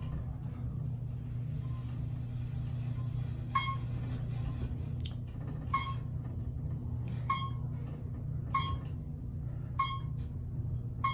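Elevator car (a former Westinghouse) riding upward with a steady low hum. From about a third of the way in, a short ping sounds every second and a half or so, six times in all.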